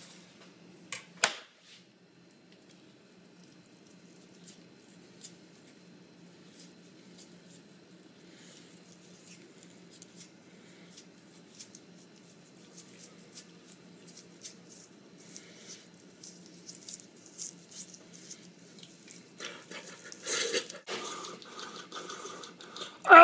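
Wet squelching and small clicks of raw squid being pulled apart and cleaned by hand on a plastic cutting board, growing busier after the first third, with a couple of sharp knocks about a second in and a faint steady hum underneath.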